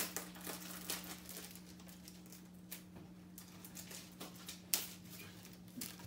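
A necklace and its card packaging being handled: scattered small clicks and crinkles, with one sharper click near the five-second mark, over a steady low hum.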